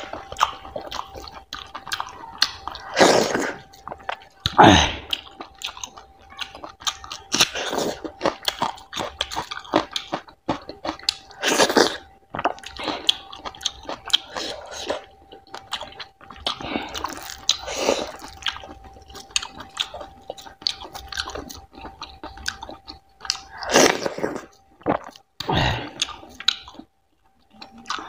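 Close-miked wet chewing and biting of fatty mutton curry and finger-millet dhido eaten by hand, with crunchy bites of raw green chilli; several louder bites stand out. A faint steady tone runs underneath.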